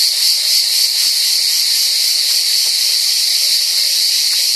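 A loud, steady chorus of cicadas, a high hissing buzz that never breaks.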